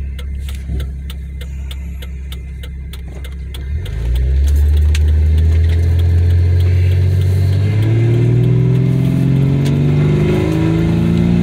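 Cabin sound of a 2001 Jeep Cherokee XJ with the windows up, running through a 2.5-inch side-exit exhaust with a Nexus stainless muffler. The engine drones at low, steady revs for about four seconds, then gets louder as it accelerates, its pitch rising steadily to the end. Faint clicks sound in the first few seconds.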